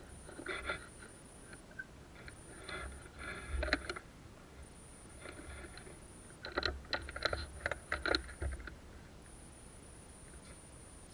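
Crunching and rustling of someone moving through dry forest undergrowth, in three irregular bursts of cracks and scuffs, the last the loudest.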